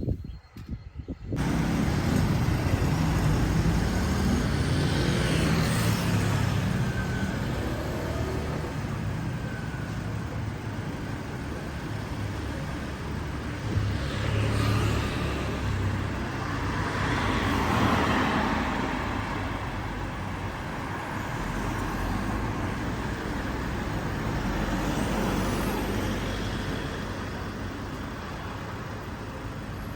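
Road traffic noise: vehicle engines and tyre rush running steadily, swelling now and then as vehicles pass. It comes in abruptly about a second in.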